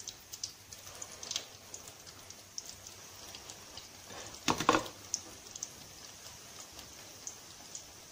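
Potato-stuffed bread rolls frying in hot oil in a kadhai: a steady faint sizzle with small crackling pops. About halfway through there is a loud double knock as a ceramic plate is set down on the counter.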